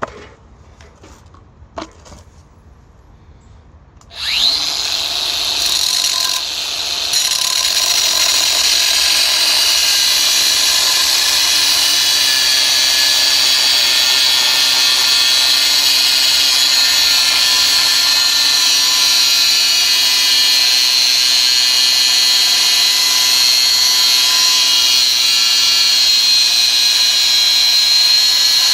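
A couple of clicks, then about four seconds in a cordless angle grinder starts with a quick rising whine and cuts steadily into a steel railway rail: a loud, high, steady whine with grinding noise.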